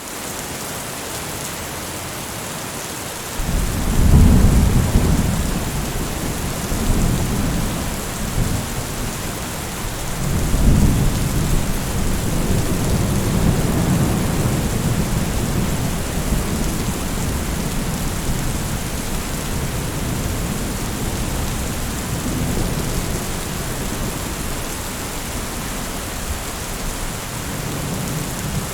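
Steady heavy rain hissing, with thunder rumbling in about three and a half seconds in, a loud roll around four to five seconds, another around eleven seconds, and lower rumbling after.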